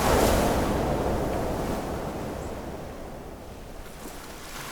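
Rushing surf noise, like a wave breaking: it swells up suddenly and fades away over about three seconds, then rises again slightly near the end.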